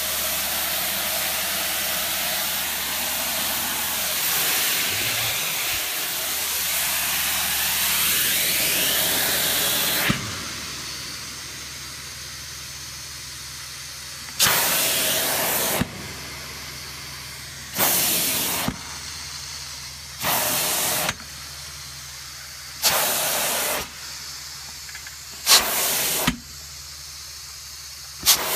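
Carpet-cleaning extraction vacuum rushing through a flat sub-surface extraction tool pressed onto wet carpet. It runs as a loud, steady rush of air for about ten seconds, then drops to a lower, muffled hum and hiss. Six short, loud rushes of air follow, each about a second long, several of them opening with a sharp click.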